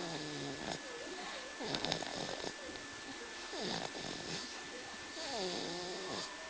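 Snoring in a steady breathing rhythm: a rough snore stroke every one to two seconds, some carrying a whistling tone that glides down in pitch.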